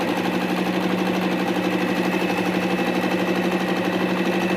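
Singer electric sewing machine running steadily and stitching cloth, with a fast, even needle rhythm over a constant motor hum.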